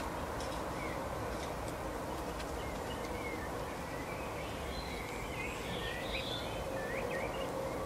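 Small songbirds chirping in short twittering calls, busiest about five to seven seconds in, over a steady outdoor hiss and a faint low hum.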